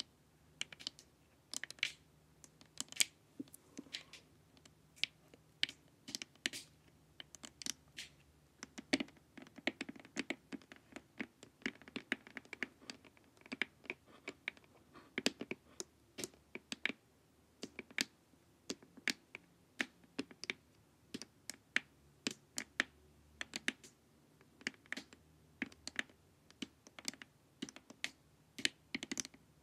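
Long acrylic fingernails tapping on a hard, glossy plastic face mask: quick, irregular clicks, several a second.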